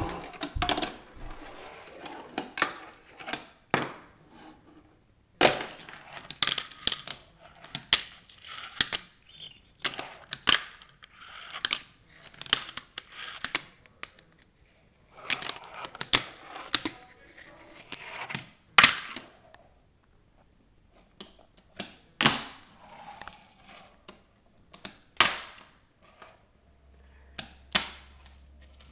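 Tech Deck fingerboard popping, landing and rolling on a hardwood floor, a plastic ramp and a metal rail: sharp irregular clacks of the deck hitting the surface, with short rolling scrapes between them.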